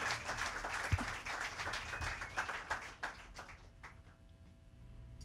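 A small audience applauding. The claps thin out and die away about three to four seconds in.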